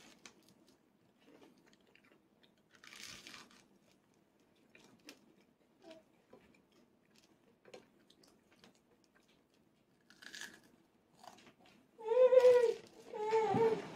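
A toddler chewing crusty bread, with a few soft crunches as she bites. Near the end she makes two short voiced sounds with her mouth full.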